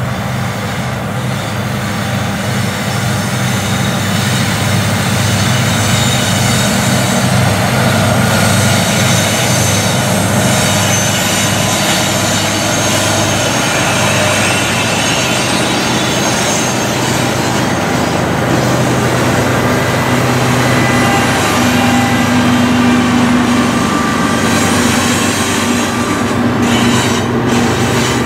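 Norfolk Southern diesel freight locomotives passing close by, their engines running loud and steady, with steel wheels rolling on the rails. Near the end the last locomotive gives way to boxcars rolling past.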